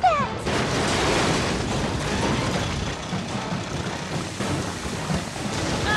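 Oil gusher erupting from a drilling derrick, as a cartoon sound effect: a steady, loud rushing roar that starts about half a second in.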